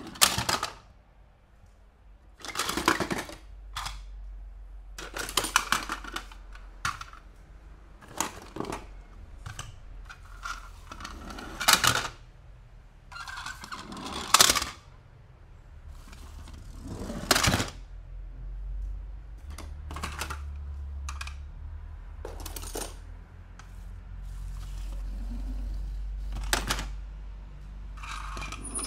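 Toy cars and their plastic and cardboard packaging being handled and unboxed: a dozen or so short crinkles, clicks and rustles a couple of seconds apart, some sharp, some lasting up to a second.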